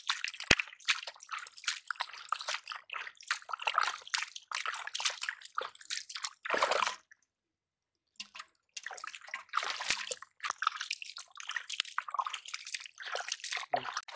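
Muddy water sloshing and squelching in a flooded hole in the ground as a hand and arm work inside it: a dense run of short wet splashes and drips. It cuts out completely for about a second and a half near the middle.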